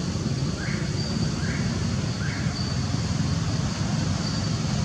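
Steady low rumble of outdoor background noise, with three short rising chirps in the first half and a faint high peep repeating about every second and a half.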